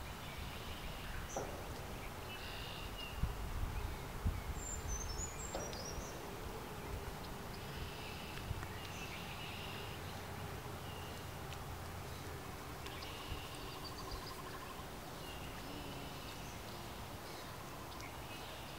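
Wetland ambience: small birds singing short, high, repeated phrases every few seconds, over a low rumble of wind.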